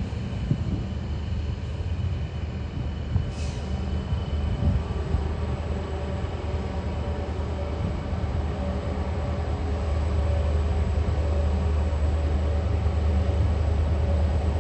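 Aurizon G-class diesel-electric locomotive G535 approaching at the head of a freight train: a steady low engine drone that grows louder over the last few seconds.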